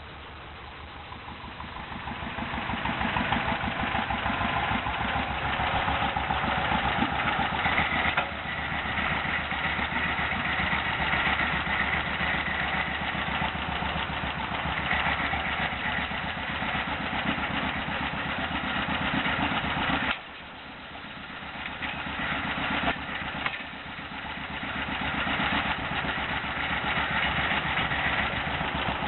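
An engine starting up and settling into a steady run with closely spaced firing pulses. About twenty seconds in it drops suddenly to a quieter, lower run, then climbs back up over a few seconds.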